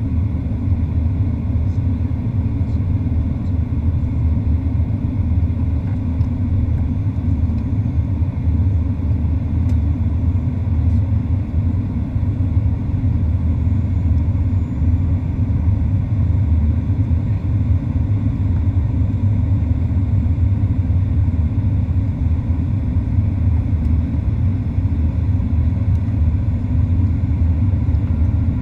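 Steady low cabin rumble of a Southwest Boeing 737-800 in flight on descent, its CFM56-7B engines and the airflow heard inside the passenger cabin at a window seat.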